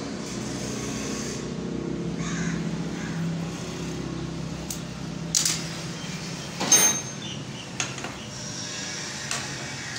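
Lathe running with a steady low hum. A few short, sharp metallic clinks come about five and a half and seven seconds in.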